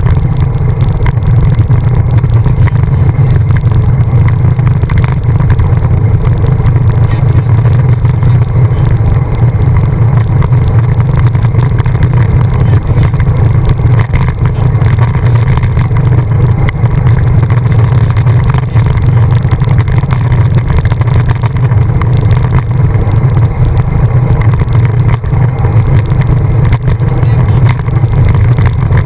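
Loud, steady wind rumble buffeting the microphone of a bike-mounted camera while cycling at speed on a wet road.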